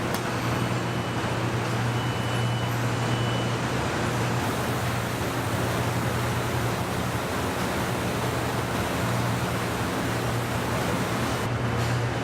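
Steady low mechanical hum over a broad, even wash of noise, typical of a truck assembly plant floor.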